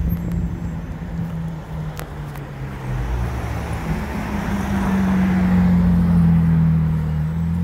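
Ferrari 458 Italia's V8 engine running at low revs as the car drives slowly past. Its steady low note rises slightly about four seconds in and is loudest as the car passes close by, with traffic noise around it.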